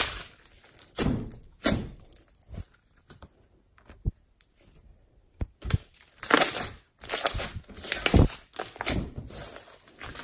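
Slime being squeezed and stretched by hand: an irregular string of short, sudden sounds, with a quieter gap in the middle and a busier, louder run of them a few seconds later.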